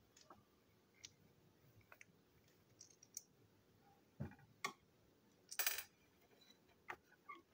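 Small plastic parts of a Plarail toy train clicking and tapping as they are handled and pulled apart by hand, with a low knock and then a short, louder plastic rattle about three-quarters of the way in.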